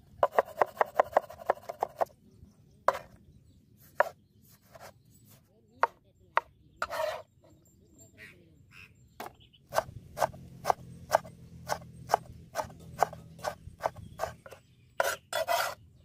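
Cleaver chopping vegetables on a wooden cutting board: a fast run of knife strikes in the first two seconds, scattered single chops, then a steadier run of chops, about three or four a second, later on.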